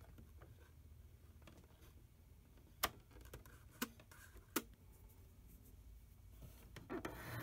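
A few small sharp clicks of metal and plastic parts in a printer mechanism being handled as a guide bar is seated, three of them clear about halfway through, over a faint low hum.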